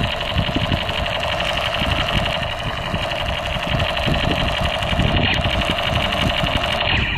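Battery-operated toy submachine gun running its automatic-fire effect: a steady, rapidly pulsing mechanical buzz that cuts off near the end.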